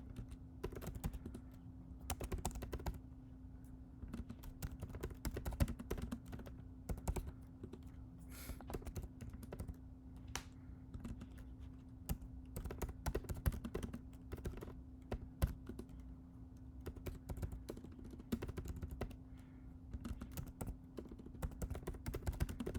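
Computer keyboard typing: irregular key clicks in quick runs with short pauses, over a steady low hum.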